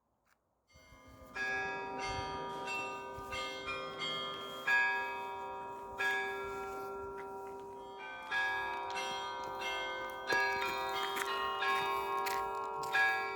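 Russian Orthodox church bells being rung, starting about a second in: many bells sounding together, smaller bells struck in quick patterns over the long ring of the larger ones, with heavier strokes every second or two.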